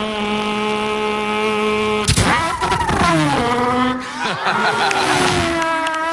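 A boy's vocal imitation of a car engine: a steady held note for about two seconds, a brief break, then the pitch swoops down and rises and falls again like an engine revving through its gears.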